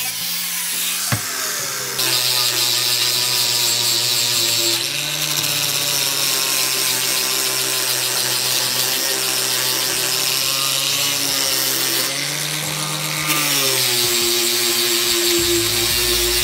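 Electric angle grinders running at speed on a cast metal plaque, first with a sanding disc and then with a polishing pad: a steady motor whine over the hiss of the abrasive on the metal, the pitch shifting a few times as the work goes on.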